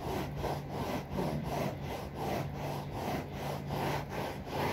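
Brisk back-and-forth scrubbing of sofa upholstery by hand with a rag and Colgate toothpaste, about three strokes a second. The rubbing is lifting black grime off the discoloured sofa.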